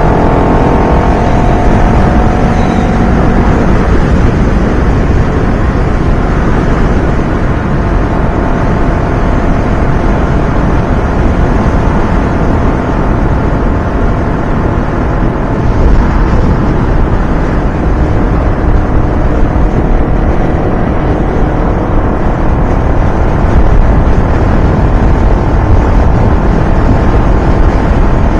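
Steady wind rush from a motorcycle riding at road speed. Under it runs the engine of a Honda CBR250RR, a parallel twin, cruising; its tone is clearest in the first few seconds.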